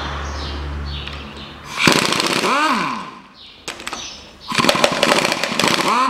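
Pneumatic wrench undoing the connecting-rod cap bolts of an engine's fourth cylinder: two bursts of the air motor, the first about two seconds in and the second near the end, the second with rapid hammering, each winding down in pitch as the trigger is released.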